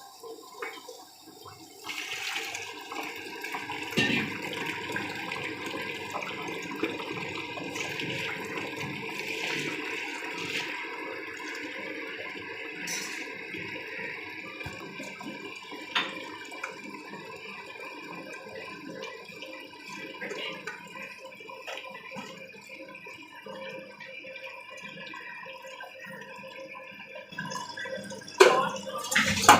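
Preethi Power wet grinder running, its rollers churning soaked rice into batter in the stainless steel drum: a steady, wet sloshing grind that is low in noise for the machine. It gets louder about two seconds in, there are a couple of sharp knocks, and a louder thump comes near the end.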